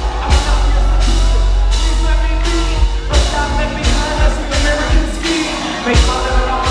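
Live hip-hop concert music over a loud PA, heard from within the crowd: heavy bass and a steady drum beat, about one hit every two-thirds of a second, with some singing over it.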